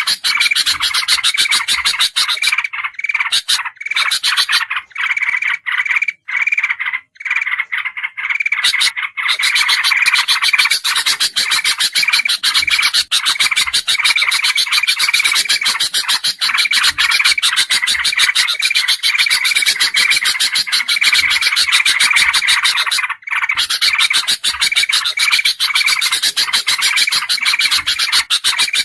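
Bird-lure recording of several bulbuls calling at once: a loud, dense, fast chatter of overlapping call notes. The chatter thins out for a few seconds early on and breaks off for a moment about two-thirds through.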